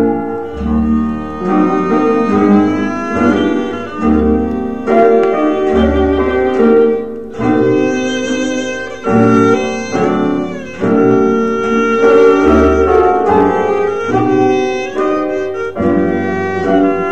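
Instrumental interlude of a Thai vocal song played from a mono vinyl LP through a Clement mono cartridge: strings carry the melody over a low bass line, with no singing.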